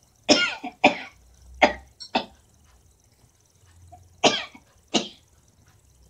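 A woman coughing in two fits: four quick coughs in the first two seconds or so, then two more about four seconds in.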